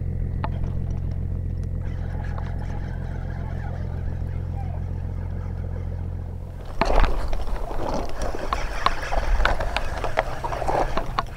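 A small engine humming steadily for about the first seven seconds, then giving way abruptly to a louder, busier stretch of scattered knocks and clatter.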